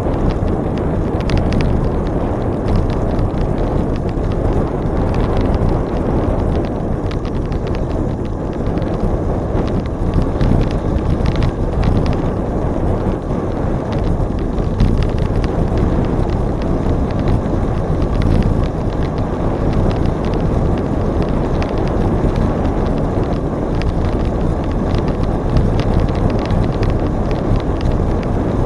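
Wind rushing over the microphone while riding a bicycle: a steady low rumble with scattered light ticks and crackles.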